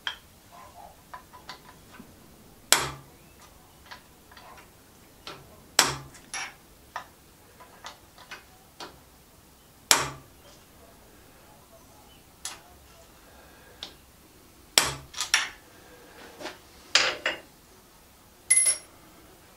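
Small hammer striking a transfer punch through a powerfeed's mounting holes, marking the hole centres on the end of a milling machine table: about half a dozen sharp metal strikes a few seconds apart, with lighter taps and clinks of handling between.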